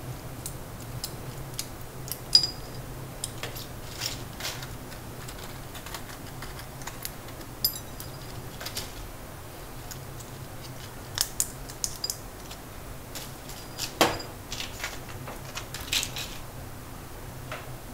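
Scattered light clicks and clinks of small dishes and a glass being handled on a kitchen counter, with a few sharper knocks, over a steady low hum.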